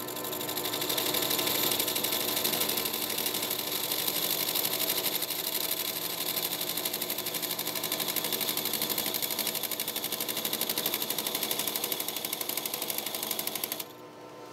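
Metal lathe turning a threaded lens part with a positive-rake cutter: a high, scraping cutting noise with a fast, even pulse over the machine's steady hum, cutting off abruptly near the end. The part is wobbling in the chuck, which makes the cut heavier as it goes.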